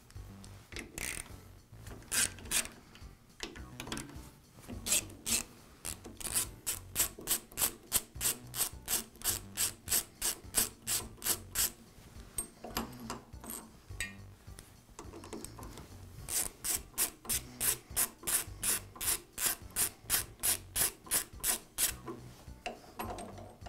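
Ratcheting screwdriver clicking in quick, even runs of about three to four clicks a second as screws are backed out. There are two long runs of clicks, the second starting about four seconds after the first stops.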